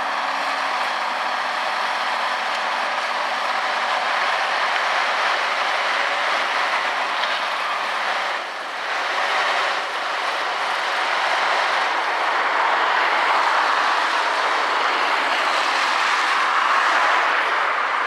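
Crushed stone sliding and pouring out of the raised body of an articulated tipper lorry, a steady rattling hiss of stones that dips briefly about halfway and gets a little louder in the second half as the load runs out onto the pile.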